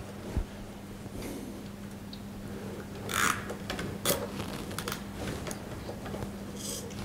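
Cable ties and plastic servo parts being handled: scattered small clicks and rustles, with a short rasp about three seconds in and a couple of clicks about a second later.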